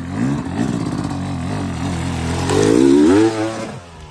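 Dirt bike engine revving up and down several times under throttle, climbing to its highest and loudest revs about three seconds in, then dropping away sharply just before the end.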